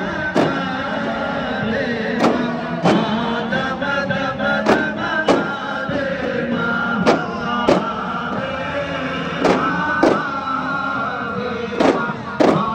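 Chanted singing over music, punctuated by sharp percussion strikes that come in pairs, a pair about every two and a half seconds.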